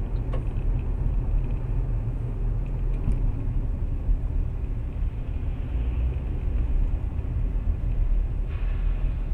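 Steady low rumble of a car's engine and road noise, heard from inside the cabin through a dashcam microphone, as the car moves slowly in traffic.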